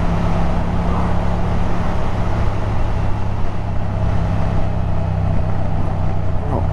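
Yamaha MT-07's parallel-twin engine running at a steady speed under way, with rushing road noise.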